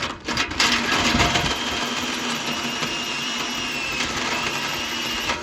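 Cordless drill running steadily for about five seconds with a high whine, working on the metal pump pipe, then cutting off at the end.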